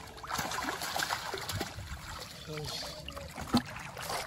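Shallow water splashing and sloshing as a bamboo fish trap is worked and lifted out of it, with one sharper splash about three and a half seconds in.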